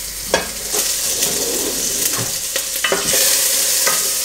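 Butter melting and sizzling in a hot stew pan on a gas burner, stirred with a spoon that scrapes and taps against the pan. The sizzle gets louder about three seconds in.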